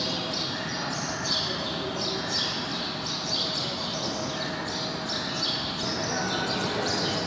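Birds chirping again and again in short falling calls, two or three a second, over a faint steady room hum.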